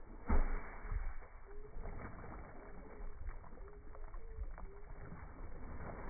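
Slowed-down recording of a stone plunking into lake water: a deep, drawn-out splash about a third of a second in, then low sloshing. Faint, short bird calls repeat, pitched low by the slow motion.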